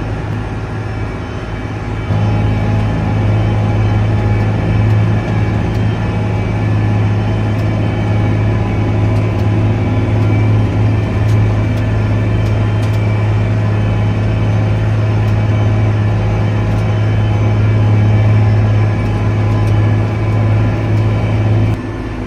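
A John Deere tractor's diesel engine running steadily while it pulls a fertilizer spreader, heard from inside the cab: a steady low drone that gets louder about two seconds in.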